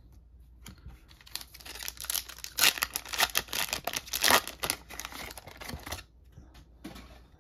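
A foil trading-card booster pack wrapper, from MetaZoo Nightfall, being torn open and crinkled by hand. It gives a run of crackling and tearing about five seconds long, loudest in the middle, and it stops about six seconds in.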